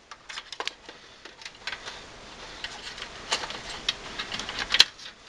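Irregular light clicks and rattles of SATA cables and their plastic connectors knocking against the metal drive cage of a desktop computer case as they are fed through, with one sharper click near the end.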